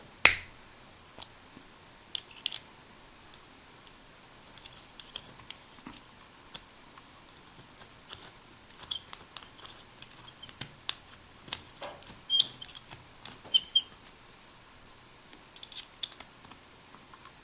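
Hex key (Allen wrench) working the small steel rib screw on a Browning Buck Mark pistol's barrel: scattered light metal-on-metal clicks and ticks as the key seats and turns, one sharp click right at the start and a few short tinny rings from the metal parts.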